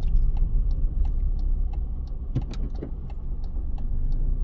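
Car interior: steady engine and road rumble while driving in town traffic, with light clicks at about two to three a second.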